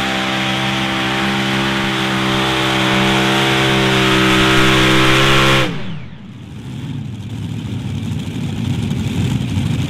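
Heavy Modified pulling tractor's several supercharged engines running flat out under load, the pitch creeping up, until the throttle is chopped nearly six seconds in at the end of the pull. The pitch drops away fast and the engines fall to a rough, uneven rumble that slowly grows again.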